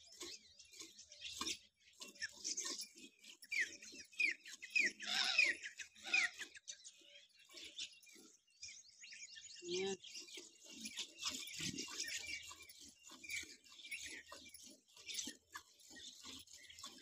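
Milk squirting into a steel pail as a cow is milked by hand, a steady rhythm of short squirts. A bird chirps a quick run of falling notes about four to six seconds in.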